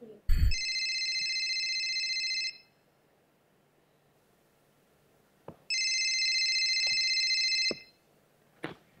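Telephone ringing twice, each ring a trilling tone about two seconds long, the rings about three seconds apart. A thump comes just before the first ring.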